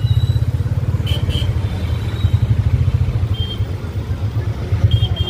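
Motorcycle engine running with a fast, pulsing low rumble while riding through city traffic, with a few short high horn beeps from traffic.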